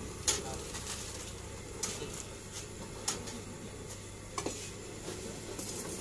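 Paneer cooking in a pan over a gas burner: metal clinks against the pan four times over a steady frying hiss.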